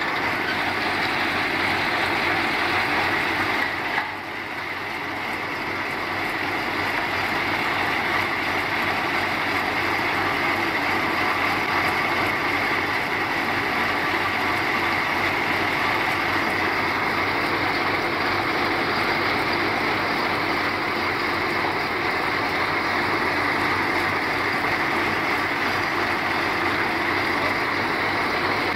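Heavy six-wheel truck's diesel engine running steadily, with a brief drop in level about four seconds in.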